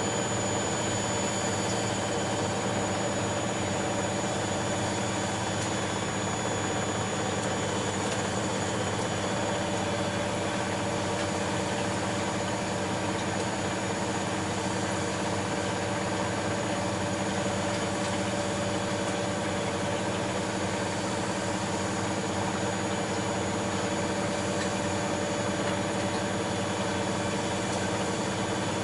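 Bosch Maxx Special WFL 248Y Exclusiv washing machine spinning at a steady speed: an even drum rumble with a steady motor whine.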